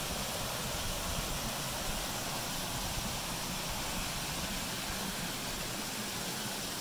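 Creek water rushing steadily over small rock cascades.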